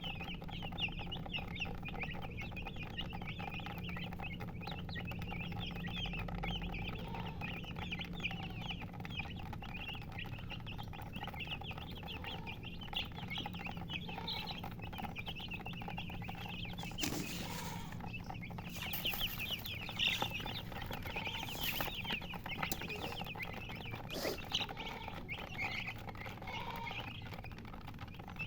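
Many chicks peeping in a continuous chorus of short, high chirps, over a steady low hum. A few sharp knocks sound in the second half.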